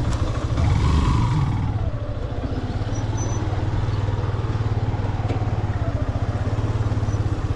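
Motorcycle engine running at low revs as the bike crawls over a rocky dirt track, a steady low thrum that swells briefly about a second in.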